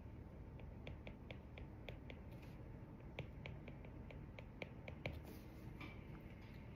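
Calculator keys being pressed: a faint run of short, irregular clicks, a few each second, as a sum is keyed in.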